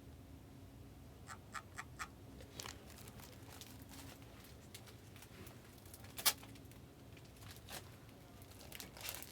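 Trading-card packs and their foil wrappers being handled: light ticks and crinkles, a few quick ticks early, one sharper click about six seconds in and a run of crinkling near the end.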